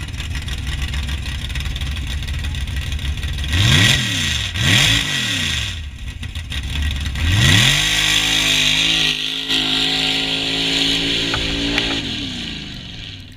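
Modified mud-racing pickup truck's engine revving in two short blips at the start line, then launching at full throttle and holding high revs for about four seconds. The revs then drop and the sound fades as the truck runs away down the track.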